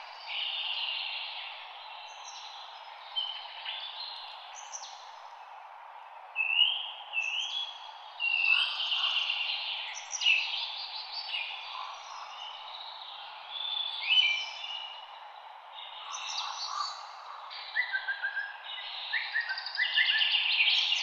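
Several songbirds singing and chirping together over a steady background hiss, with quick trills of rapidly repeated notes, one falling in pitch, near the end.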